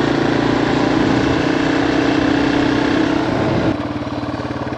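Yamaha TW200's single-cylinder four-stroke engine running steadily under way; a little over three and a half seconds in, the throttle closes and the engine drops to a quieter, slower, evenly pulsing beat.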